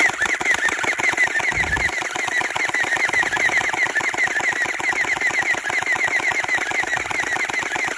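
Electric gel ball blaster firing continuously on full auto: a rapid, even mechanical rattle of shot after shot.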